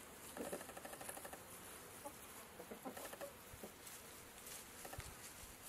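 Chickens clucking softly now and then: a few short clucks from a rooster and hens.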